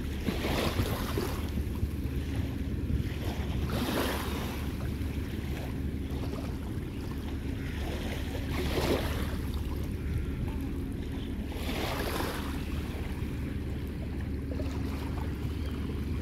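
Wind rumbling on the microphone by the sea, with small waves washing in, the hiss swelling and fading every few seconds.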